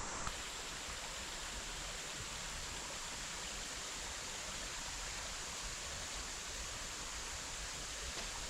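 Steady rush of a creek's running water, an even noise that holds without change.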